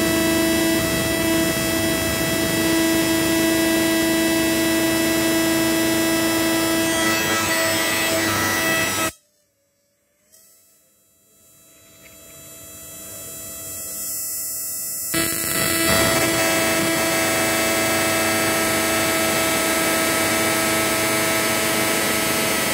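Analog 12 V-to-1200 V AC electric fishing machine running into electrodes in a bucket of water, sparking at an electrode tip: a loud, steady electrical buzz made of several fixed pitches. About nine seconds in it cuts off suddenly, creeps back faintly a few seconds later, and jumps back to full strength about fifteen seconds in.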